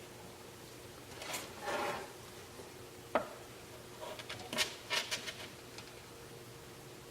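Hand handling noises at a workbench while an antenna lead is hooked up to an old radio: a rubbing scrape, a single sharp click, then a quick cluster of clicks and taps, over a faint steady hum.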